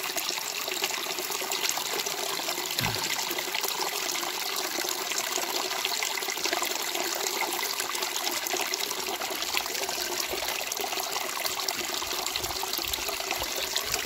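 Small trickle of water running steadily over rocks and leaves, with a plastic bottle held in the flow to fill it. A brief low bump about three seconds in.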